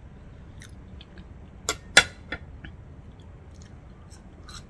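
Close-miked eating: soft chewing, with three sharp clinks of a metal fork against a ceramic plate about two seconds in, the middle one the loudest.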